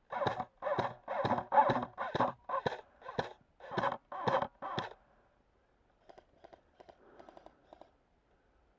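Airsoft gun firing a rapid string of single shots, about three a second, for roughly five seconds, then stopping. Fainter, quicker shots follow near the end.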